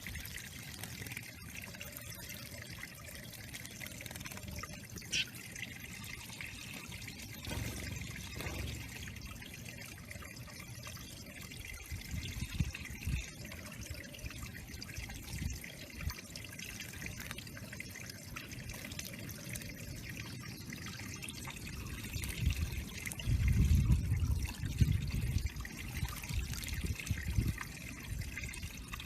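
Water trickling steadily into a backyard bird pond. Near the end there are a couple of seconds of louder low rumbling.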